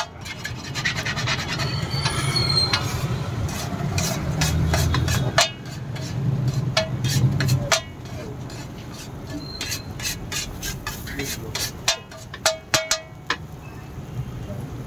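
Metal spatula scraping and clacking on a flat iron griddle as an omelette is cut and worked, with repeated sharp taps of the blade on the pan and a quick run of taps late on. A low hum sits underneath for the first half and drops away about eight seconds in.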